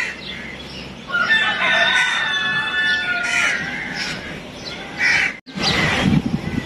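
Rooster crowing once, a long call of about two seconds. Near the end the sound drops out briefly and a different, noisier background follows.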